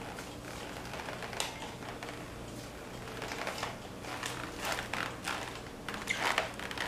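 String mop swished and pushed across a tile floor in irregular strokes, with scattered small clicks and knocks, over a faint steady low hum.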